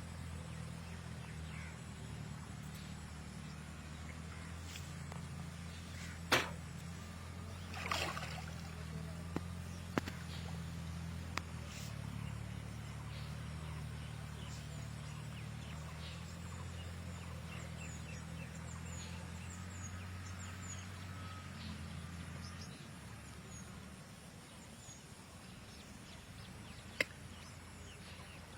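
A low, steady engine hum that stops about three quarters of the way through, with a few sharp knocks and faint high bird chirps.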